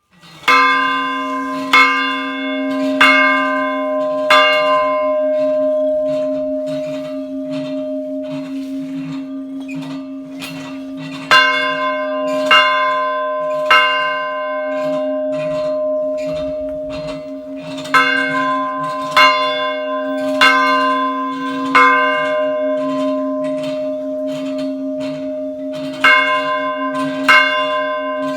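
Small church bell ringing, its low hum sounding on throughout. Loud strokes come in runs of three or four about 1.3 s apart, with lighter strokes in between.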